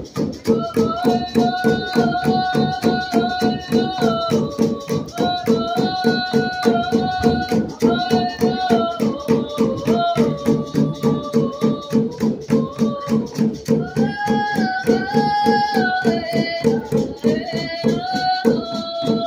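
Northwest Coast drumming and singing: a group keeps an even, steady drumbeat under chanted song with long held notes that slide between pitches.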